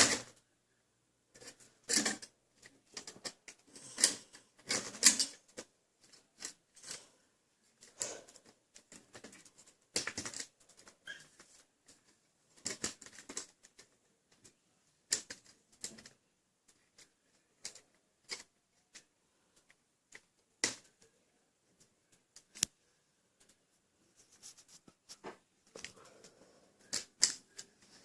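Small screws being driven back into a laptop's screen assembly with a Phillips screwdriver: irregular sharp clicks and taps of the screwdriver and screws against metal and plastic parts.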